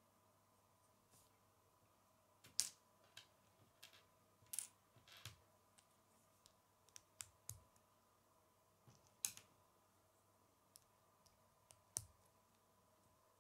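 Small Lego bricks being handled and pressed together: a scattering of sharp plastic clicks and taps at irregular intervals, a few clearly louder than the rest.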